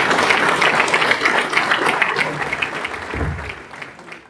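Audience applauding, a dense patter of many hands clapping that fades out over the last second or so.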